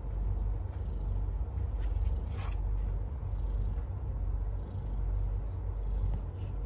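Mother cat purring steadily, a low pulsing rumble, as she lies nursing her newborn kittens.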